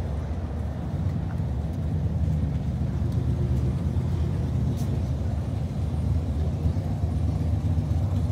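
Steady low rumble of motor traffic and running engines on a city street, with a couple of faint ticks.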